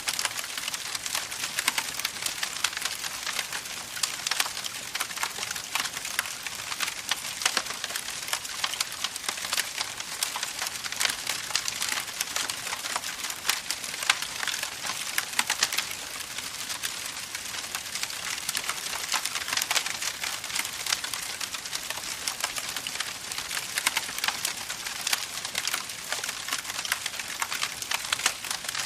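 Campfire burning, with dense, continuous crackling and popping of the wood.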